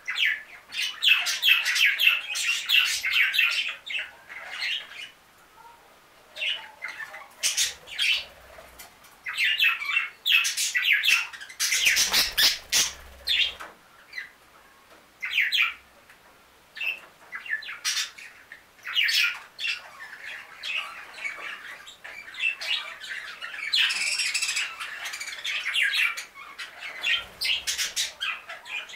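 Several budgerigars twittering in bursts of rapid chirping calls, with short quieter gaps between the bursts.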